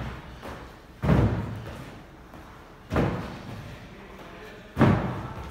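Three heavy thuds of feet landing during box jumps on a wooden plyo box, about two seconds apart, each trailing off in an echo.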